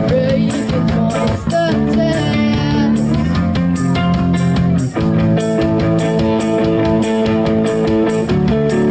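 Live rock band playing an instrumental passage: electric guitars and bass over drums with steady cymbal hits. A high, wavering melody line sits on top in the first three seconds, and the band drops out for an instant about five seconds in.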